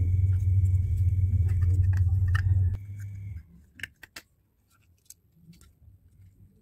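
A steady low rumble cuts off about three seconds in. A few sharp plastic clicks and faint ticks follow as the plastic shell of a plug-in phone charger is handled and fitted around a capacitor.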